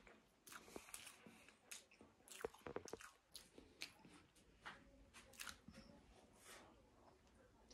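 Faint mouth sounds of a person chewing and eating cake: scattered soft, irregular clicks and smacks.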